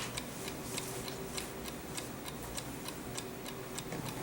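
Clock ticking with fast, even ticks, several a second.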